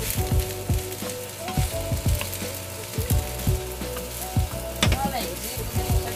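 Fried rice sizzling in a metal skillet while a spatula stirs it, with irregular knocks and scrapes of the spatula against the pan several times.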